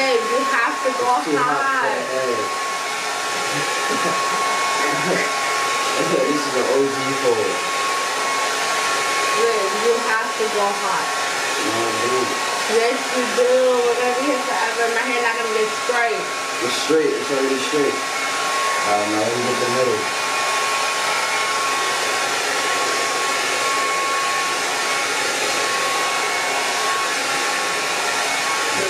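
Hand-held hair dryer running steadily with a thin whine, blow-drying long hair.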